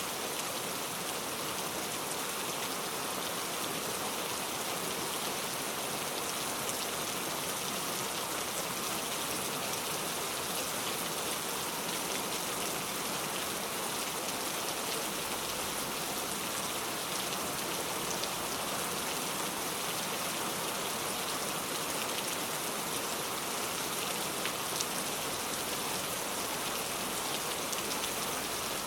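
Heavy rain falling steadily on a road surface, with no thunder. It makes a dense, even hiss with fine patter from individual drops.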